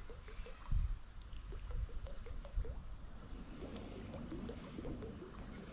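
Faint gurgling and lapping water, with a couple of soft low knocks about a second in and again near the middle.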